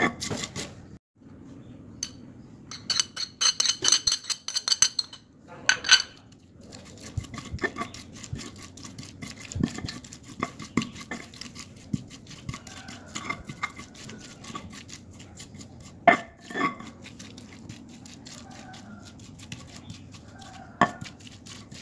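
A stone pestle (ulekan) grinding and knocking on a stone mortar (cobek), crushing shallots, garlic, chillies and dried shrimp into a spice paste: a run of short scrapes and knocks, with a brief fast rattling a few seconds in and an occasional louder knock.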